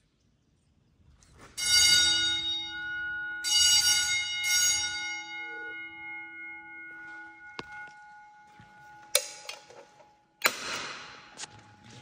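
A resonant metal object struck three times, once about a second and a half in and then twice close together around four seconds, each clang ringing on with a bell-like tone that fades over a few seconds. Two sharper knocks follow later, the second one near the end.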